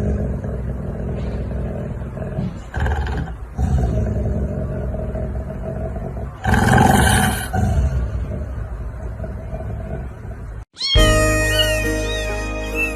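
A cat yowling in long drawn-out calls, loudest for about a second in the middle. Near the end it cuts suddenly to bright bell-like music.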